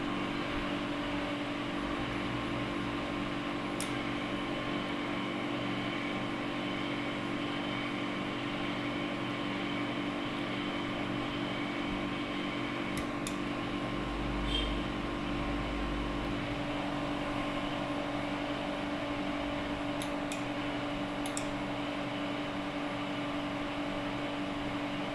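Steady hum of a running machine's fan, several held tones over an even hiss, with a few faint clicks scattered through and a brief low thud about midway.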